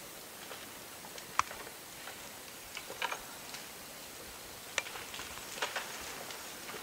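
Scattered sharp snaps and light crackles of twigs and dry brush in a forest: a few single cracks spaced a second or more apart, the loudest about a second and a half in, over a faint steady hiss.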